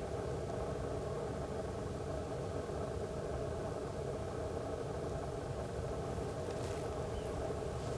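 Steady mechanical hum of a motor over a low rumble, unchanging throughout.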